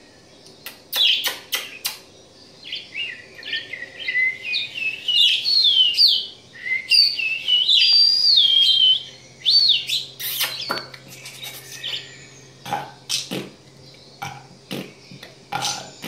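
Budgerigar warbling: a long run of quick chirps and gliding notes from about two and a half seconds in to about ten seconds in, with scattered clicks and short chirps before and after.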